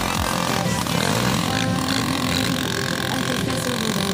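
Several quad-bike (ATV) engines running together, their pitch rising and falling as the riders speed up and ease off.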